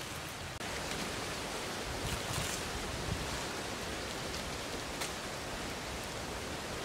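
Steady, even hiss of background noise with a few faint crackles as a baked clay crust is broken away from a fish. The hiss cuts out for an instant about half a second in.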